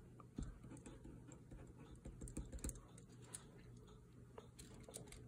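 Faint scratching and light tapping of a gel pen writing on paper, mostly in the first three seconds, over a low steady hum.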